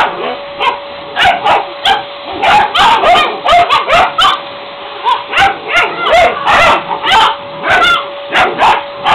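Airedale terrier puppies barking and yapping, many short high yelps at an irregular pace of about two a second. Under them a vacuum cleaner runs with a steady hum.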